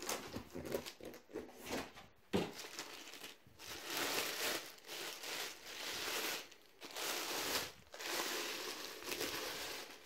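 Clear plastic bag crinkling as hands pull it off a subwoofer, in several stretches of a second or more with short pauses between.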